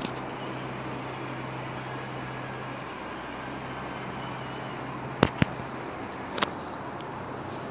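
A small electric motor on a homemade automatic spray machine hums steadily over a constant hiss, then the hum stops about three seconds in. A few sharp clicks follow near the end.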